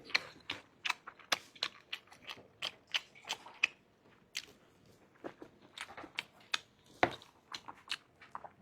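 Close-miked eating sounds: a person chewing with short, wet mouth clicks and smacks, irregular and a few a second, one louder smack about seven seconds in.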